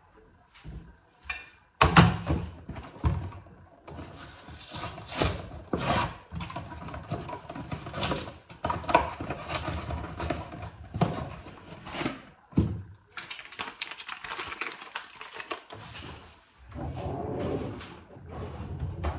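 Kitchen handling sounds: a sharp knock about two seconds in, then a run of clicks, taps and rustling of a cardboard box and plastic packaging as food is emptied into a glass dish.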